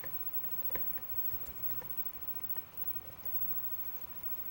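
A few light clicks and taps as a euro lock cylinder is handled and set into a bench vise. The two sharpest clicks come in the first second, then fainter ticks over a faint steady hiss.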